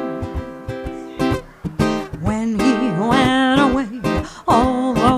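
Baritone ukulele strumming jazz chords, with a woman singing in jazz style; her voice comes back in about two and a half seconds in, with long notes sung with vibrato.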